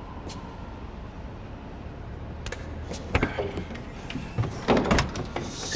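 A car door being opened: sharp clicks of the handle and latch about halfway through, then rustling and a louder thump near the end, over a low steady hum.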